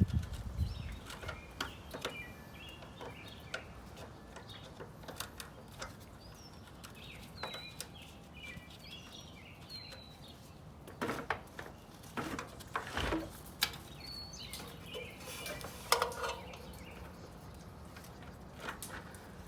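Scattered clicks and knocks of metal and tools as an old gutter downspout is unscrewed and pried loose, with a cluster of louder knocks about two-thirds of the way in. Birds chirp in the background.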